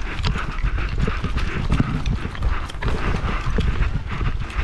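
A player's footsteps running through dry grass and brush, with gear jostling and rumble from the body-mounted camera moving.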